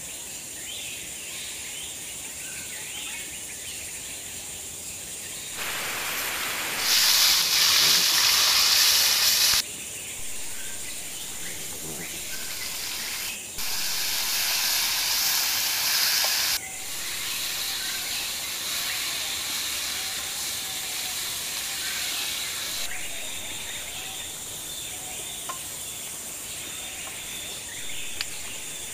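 Chicken sizzling as it fries in a black iron kadai. The sizzle is loud in two stretches of a few seconds each, then settles to a steadier, quieter hiss. Birds chirp faintly before it starts.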